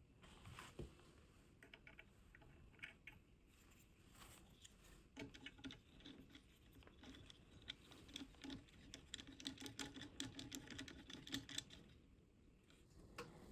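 Faint, irregular clicking and tapping of small parts being handled and fitted together, with the clicks coming thick and fast for several seconds in the middle.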